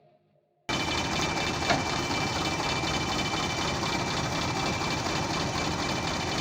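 A heavy vehicle engine running steadily, starting abruptly under a second in, with one brief knock a little later.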